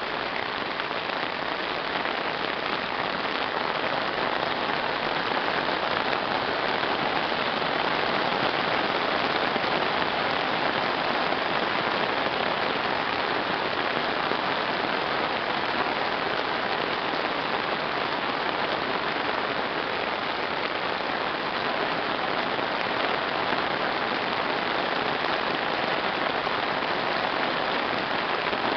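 Heavy downpour: rain pouring steadily onto a wet paved road and roadside plants, an even hiss that does not let up.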